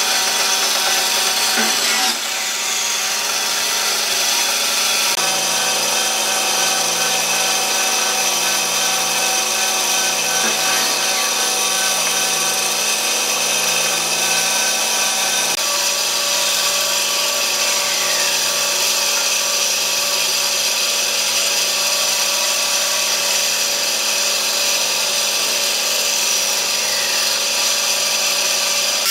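Bandsaw running and cutting through a thick slice of dry tree stump: a steady machine whine made of several held tones over the noise of the blade in the wood, shifting slightly a few times.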